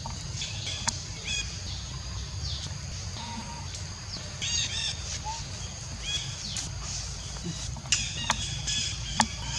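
Short, high-pitched animal chirps and squeaks repeating every second or so over a steady low rumble, with a few sharp clicks near the end.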